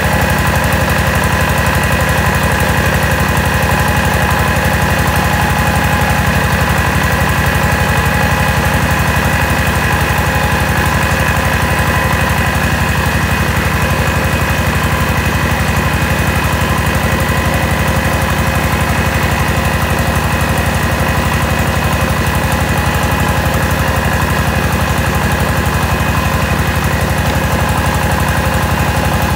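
Mobile rice huller running steadily under load while milling rice: its engine keeps up an even, rapid beat, with a steady high whine from the husking machinery over it.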